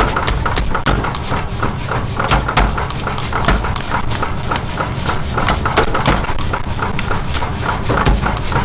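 Mechanical power hammer pounding a red-hot iron hammer-head blank, a fast, unbroken run of heavy blows over the steady low hum of the machine's motor.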